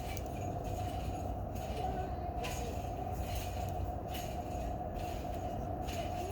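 A steady low rumble with a constant hum, and a few faint brief rustles.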